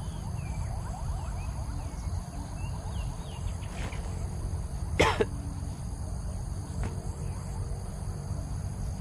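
Outdoor field ambience: a steady low rumble with faint bird chirps, and one short, louder sound about five seconds in.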